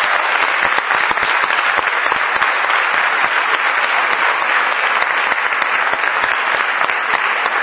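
Audience applauding: a dense, steady mass of clapping from many hands.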